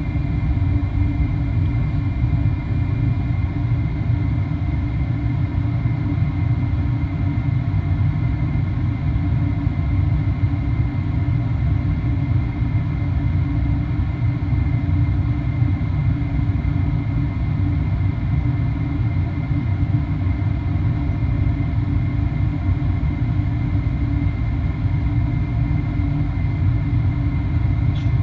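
Steady in-flight cabin noise of a Boeing 737-800 heard from a window seat beside the wing: a deep, even rumble of airflow and the CFM56 turbofan engines, with a faint steady high whine over it.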